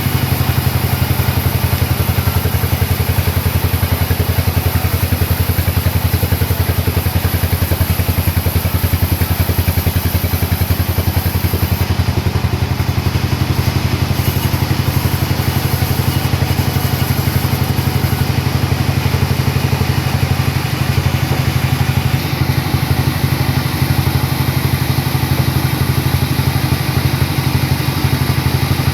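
A sawmill's engine running steadily at constant speed, with a fast, even low pulsing.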